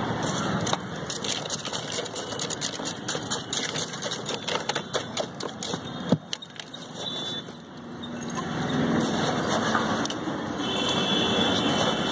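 Street traffic noise with a run of rapid clicking and clattering during the first half, and a single sharper knock about halfway through.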